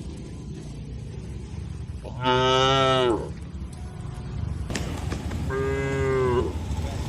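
Cattle mooing: two calls, a loud one about two seconds in lasting about a second, then a longer one from about five and a half seconds, over a steady low background rumble.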